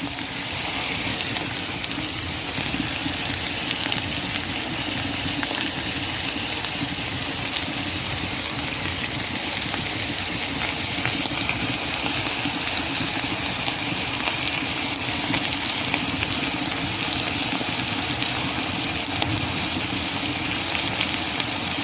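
Swai fish fillets frying in vegetable and olive oil with onion chives, a steady sizzle with fine crackling throughout.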